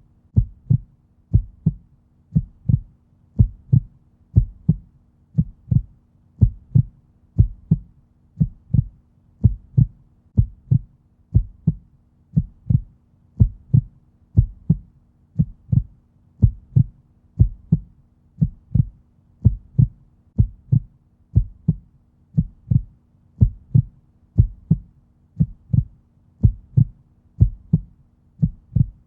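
Heartbeat at a resting rate: a steady, deep lub-dub pair of thumps repeating about once a second.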